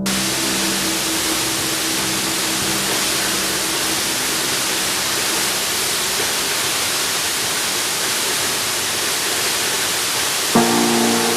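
A steady, even rushing noise. About ten and a half seconds in, a sudden sound with several held tones starts over it.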